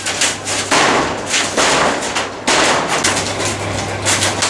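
Corrugated zinc roofing sheets banging and clattering as they are torn off and handled: a run of loud, sharp impacts, about one every half second to second, each ringing on briefly.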